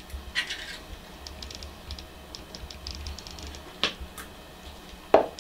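Small clicks and crackles of eggshell handled in latex-gloved hands, then sharp knocks about four seconds in and again, loudest, near the end as the next egg is cracked against the bowl.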